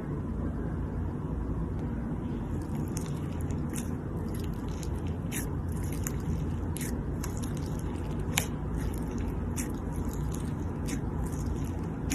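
Slime being pressed and worked by hand, giving irregular crisp crackles and pops that begin about two and a half seconds in, over a steady low rumble.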